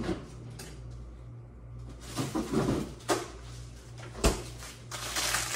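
Kitchen handling sounds: a few scattered knocks and clunks, the sharpest a little over four seconds in, like a cupboard or freezer door, over a steady low hum.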